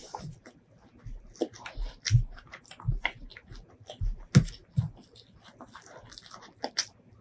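Close-miked eating sounds of chicken biryani eaten by hand: wet chewing, lip smacks and sharp mouth clicks in quick, uneven succession, with a louder smack a little over four seconds in.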